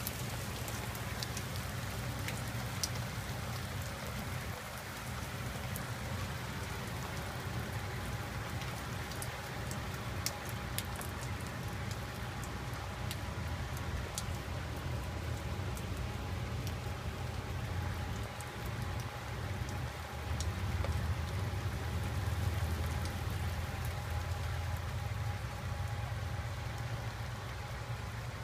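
Steady rain falling on a wet street and pavement, with scattered sharp ticks of single drops over an even hiss and a low rumble underneath.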